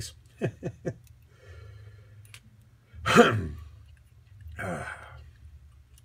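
A man's breathy vocal sounds: a few short murmurs in the first second, a loud sigh about three seconds in, and a weaker one near the five-second mark.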